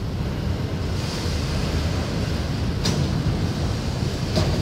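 Autorack freight cars rolling past with a steady rumble and rattle, with two sharp knocks about a second and a half apart near the end.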